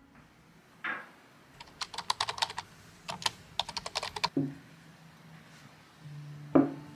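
Computer keyboard typing: a quick run of key clicks lasting about two and a half seconds. A knock comes about a second in, and near the end a louder knock as a glass bowl is set down on the table.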